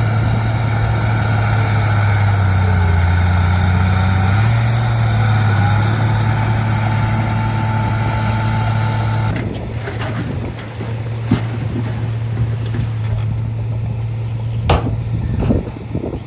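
Bulldozer's diesel engine running steadily, its pitch dropping for a couple of seconds a few seconds in and then rising again. About nine seconds in, a loud hiss cuts off suddenly, leaving the engine running more quietly, with a few sharp knocks near the end.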